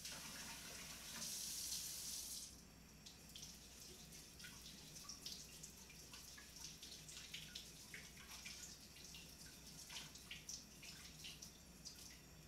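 Kitchen faucet running into a sink while fingerling potatoes are washed under it. For the first two seconds or so the water rushes steadily and faintly. After that it runs more quietly, with many small splashes and clicks as the potatoes are handled in the stream.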